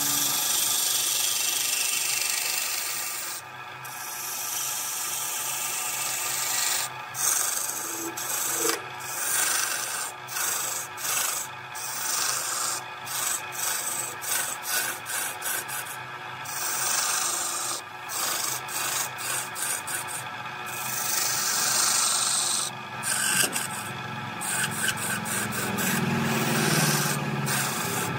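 Turning tool cutting a spinning wooden blank on a wood lathe, shavings peeling off in a scraping noise that breaks off and resumes many times as the tool is lifted and reapplied, over the lathe's steady hum.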